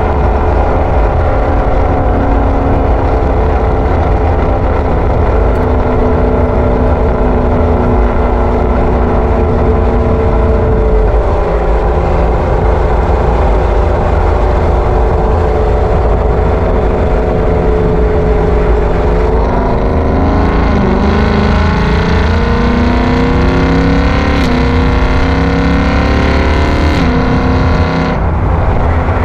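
Ford Mustang GT's 5.0-litre V8 running through a Borla ATAK cat-back exhaust, heard through an action camera's own microphone while the car drives. The note holds steady at cruising revs for most of the time. In the last third it rises and falls with throttle changes, over a constant low rumble.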